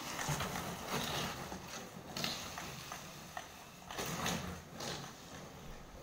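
Empty plastic bottles strapped to the back of an electric mobility scooter knocking and rattling against each other irregularly as the scooter swerves, with clusters of knocks about two seconds in and again around four to five seconds.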